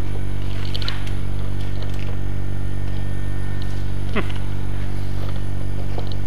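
Wood lathe running steadily, a constant hum made of a stack of low tones, with a few light knocks and scrapes of things being moved about on a workbench.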